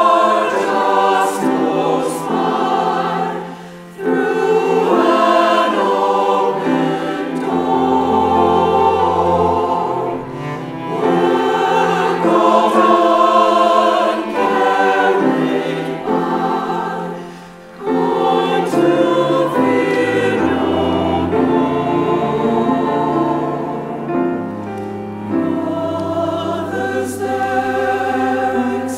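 Mixed choir singing in sustained phrases, with a cello holding low notes beneath the voices at times. The singing dips briefly about 4 seconds in and again about 17 seconds in, between phrases.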